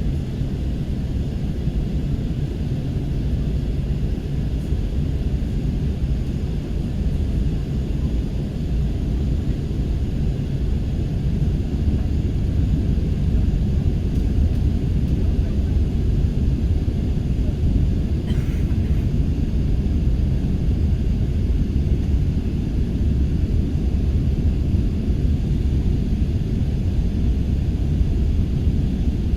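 Steady low rumble of an airliner's engines and rushing air, heard inside the cabin during the approach to landing.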